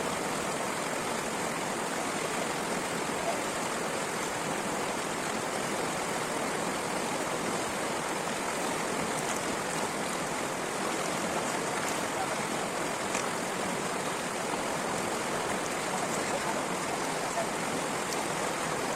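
Stream water flowing steadily, an even unbroken rush.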